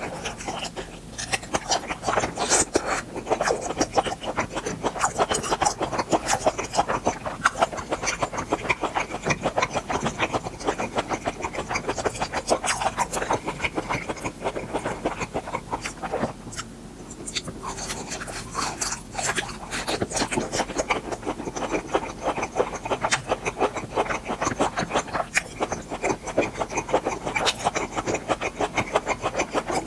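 Chewing and eating grilled beef intestines: a dense, unbroken run of short mouth clicks and smacks that eases briefly about halfway through.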